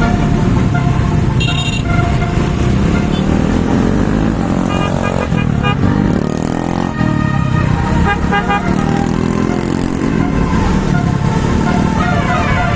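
Indonesian bus 'telolet' horn, a multi-tone musical air horn, sounding in repeated chiming toots over the steady running of engines and road traffic, with a falling-then-rising swoop of pitch midway.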